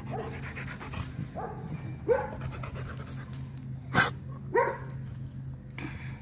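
Rottweiler panting, with a few short whining calls and a sharp knock about four seconds in.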